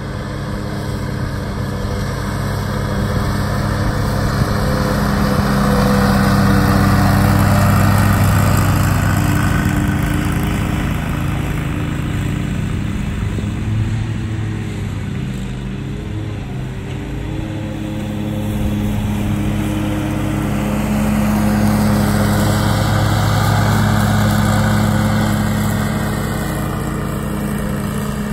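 Exmark zero-turn riding mower's engine running steadily while mowing, growing louder as the mower passes close about a quarter of the way in and again about three quarters through, then easing off between passes.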